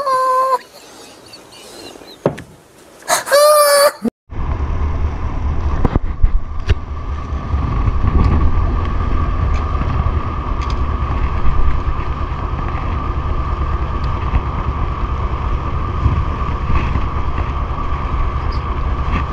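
A boat's engine running steadily with a constant whine, under a low rumble of wind on the microphone, starting abruptly about four seconds in. Before it come a few brief wavering, voice-like sounds.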